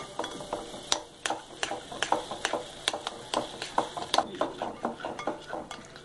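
Thick, freshly cooked brigadeiro being stirred in a glass bowl, the utensil clicking and scraping against the glass in quick, irregular strokes of about three or four a second.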